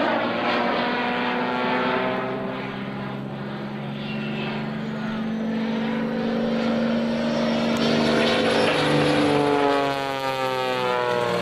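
Waco biplane's piston engine and propeller droning in flight. The note falls in pitch as the plane passes in the first couple of seconds, holds steady, then climbs again near the end.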